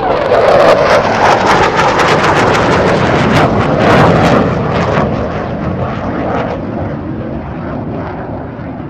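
Jet aircraft passing, a loud rushing noise full of sharp crackles that fades steadily over the last few seconds.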